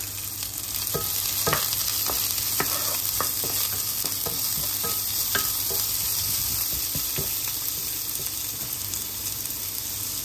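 Sliced red onion and garlic sizzling in hot olive oil in a frying pan, stirred with a wooden spatula that knocks and scrapes against the pan several times, mostly in the first half.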